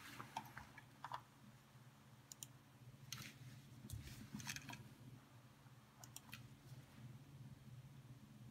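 Faint computer mouse clicks, a few scattered single clicks, over a low steady hum.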